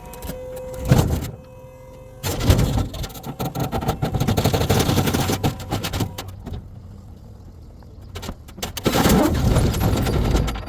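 A dump trailer's electric hydraulic pump whining, cutting off about two seconds in, then a load of wood rounds sliding and clattering off the tipped bed in two long rumbling spells.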